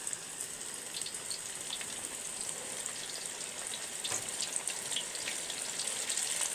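Flour-dredged fish pieces frying in hot oil: a steady sizzle full of small crackles and pops, growing a little louder.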